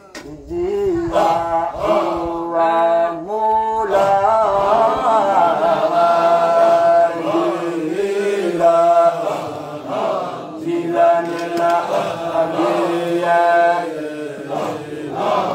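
Men's voices chanting a Sufi dhikr of the Qadiriyya order, in long drawn-out held notes that bend slowly in pitch.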